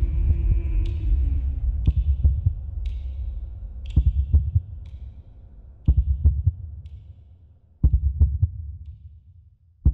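Soundtrack of deep, heartbeat-like bass thumps in groups of about three, every two seconds, over a low drone that fades out gradually.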